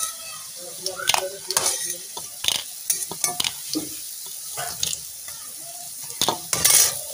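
Radish fritters sizzling steadily in hot oil in a kadai, while a metal spatula scrapes and knocks against the pan many times as the fritters are lifted out of the oil.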